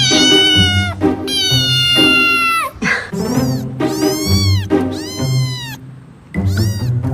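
A cat meowing loudly about six times, two long drawn-out meows falling in pitch at the end, then shorter rising-and-falling meows, over background music with a steady beat.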